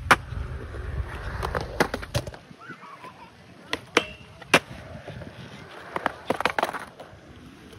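Skateboard wheels rolling on concrete with a low rumble, broken by sharp clacks of the board popping and hitting the ledge. After about two and a half seconds the rumble stops, and a series of separate clacks and scrapes follows as the board strikes and slides on the obstacles.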